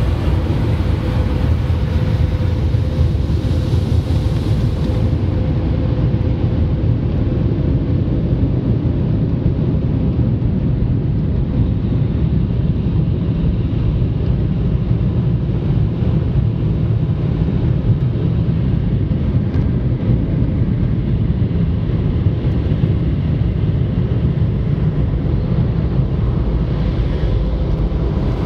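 Steady low rumble of a car heard from inside the cabin as it rolls slowly, with a faint steady hum; the level stays even throughout.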